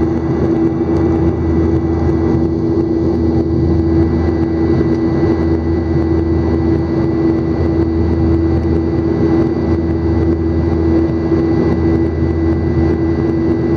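Jet airliner cabin noise in flight: the engines and rushing air make a steady loud drone with a constant hum and a faint high whine over a low rumble.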